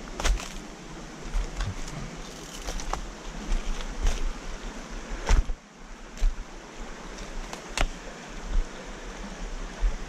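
River water rushing steadily, with irregular sharp knocks and splashes over it, the loudest about five seconds in and again near eight seconds.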